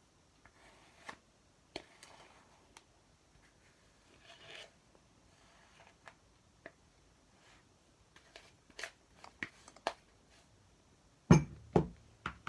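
Kinetic sand being cut, pressed and scraped with a tool: soft crunches and scrapes with scattered light taps, then two louder thumps near the end.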